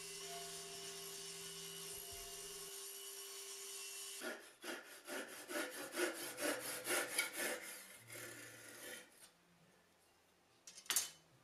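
A table saw running steadily with a low hum, then, about four seconds in, a handsaw cutting through a wooden stretcher in quick back-and-forth strokes, about two to three a second, as the waste of a half-lap joint is sawn away. One brief scrape follows near the end.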